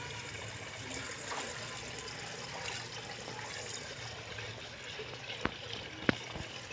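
Steady trickle of running water, with two sharp clicks about half a second apart near the end.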